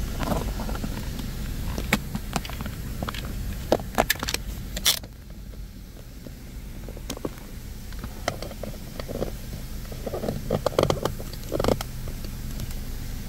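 D&S IQ Genius Series touch-free car wash spraying water onto the car, heard from inside the cabin over a steady low hum. The spray hiss drops away suddenly about five seconds in, and scattered clicks and patters of water on the glass follow.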